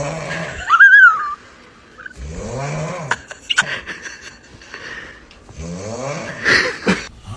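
A person snoring: three rattly snores about three seconds apart. The first ends in a loud, high whistle that rises and falls, and the last ends in a short squeak that falls in pitch.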